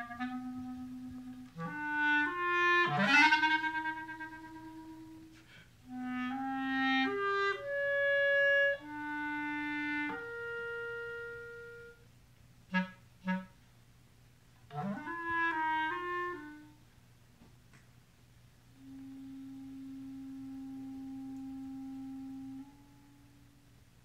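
Solo clarinet playing a slow, sparse passage: held notes broken by pauses, a quick upward flurry of runs about three seconds in and again about fifteen seconds in, and two short detached notes around thirteen seconds. Near the end it holds one long, quieter low note.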